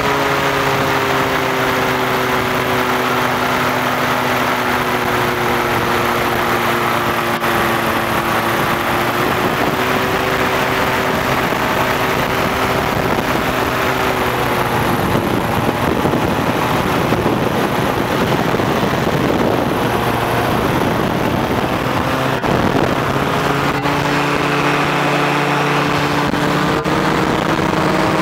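Powered parachute's engine and propeller running steadily in flight, heard from the cart. Its steady note wavers slightly and breaks into a rougher, noisier sound for several seconds midway before settling again.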